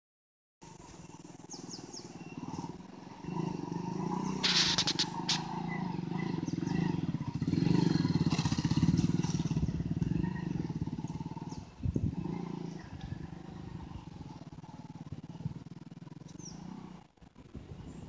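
Motorcycle engine running steadily while the bike is ridden across grass. It grows louder as the bike comes closer, is loudest around eight seconds in, then gets weaker as the bike moves away.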